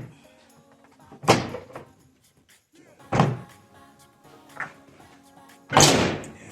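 Four loud knocks and thuds from hands working on the SUV's rear liftgate and wiper-motor area. The last knock is the loudest. Music plays steadily in the background.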